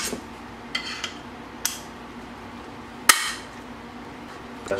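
A handful of sharp clicks and knocks of hard plastic and metal as an inline skate's frame and wheels are handled, the loudest a little after three seconds in. They come while working at a wheel that is fitted too tight on the frame to spin.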